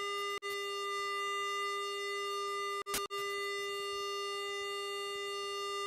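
Steady high whine inside a Boeing 777-200ER cockpit, made of several fixed pitches that hold constant. It cuts out for an instant about half a second in and again around three seconds in.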